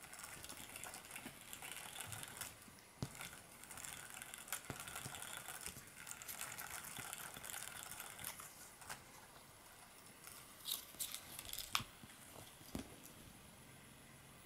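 Kittens playing with a plastic flower-base butterfly toy: a faint scratchy, mechanical rustle from the toy and their paws, broken by a few sharp knocks as the toy is struck and tipped over.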